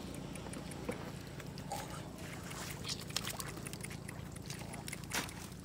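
Fish splashing in shallow muddy water while hands grab at them through wet grass: a scatter of short splashes and rustles, the loudest about five seconds in, over a steady low rumble.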